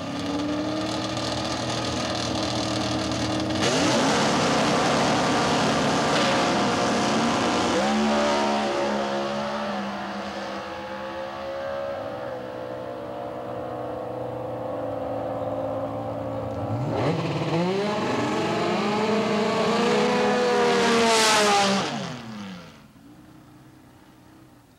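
Pontiac Super Stock drag car's engine held at high revs on the starting line, then launching at full throttle about four seconds in and pulling hard down the track with a gear change a few seconds later. From about 17 s an engine is heard again, loud and rising then falling in pitch, and the sound falls away sharply near the end.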